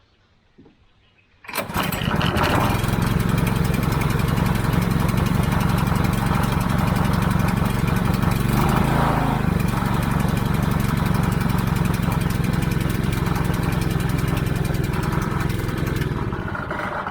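Honda petrol engine driving a Davey water pump starts about a second and a half in, runs steadily, then dies away near the end. The pump is losing its prime and running dry: water flow almost stops right after starting.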